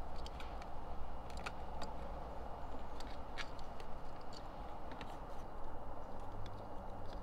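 Scattered small clicks and taps as a stainless LED courtesy light fixture is handled and pressed into its mounting hole in a fiberglass boat hull and its screws are started, over a steady background hiss.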